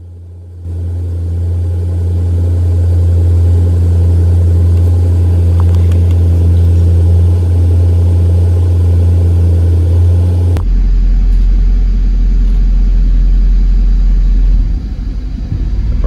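A 1997 Jaguar XK8's V8 idling, heard from inside the cabin. About ten seconds in its note drops suddenly to a deeper one, and near the end it turns uneven as the engine falls back into its multi-cylinder misfire, caused by a failing ignition module.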